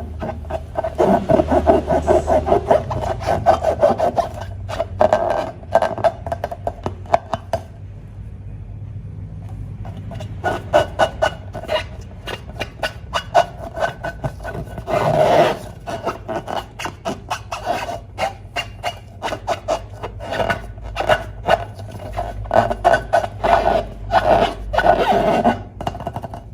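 Slime and balloon rubber being worked by hand: fast runs of sticky clicking and squeaky rubbing that come in bursts, with a short lull about eight seconds in.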